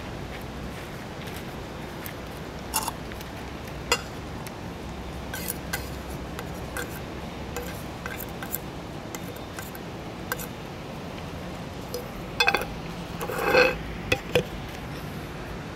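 Plastic spoon clinking and scraping against a metal can of wet cat food and a paper tray as the food is scooped out: scattered small clicks and taps, with a louder burst of tapping and scraping about thirteen seconds in.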